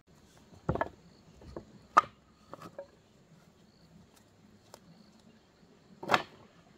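Sawn wooden planks knocking and clattering as they are lifted and set down on a pile. A few separate knocks, the sharpest about two seconds in and another loud one about six seconds in.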